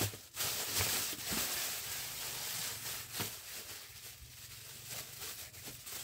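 Thin plastic bag rustling and crinkling as it is handled, with scattered sharper crackles, loudest in the first half.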